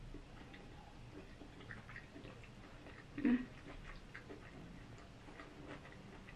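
Quiet eating: faint chewing and a few light clicks of a fork against a plate, one a little louder about three seconds in.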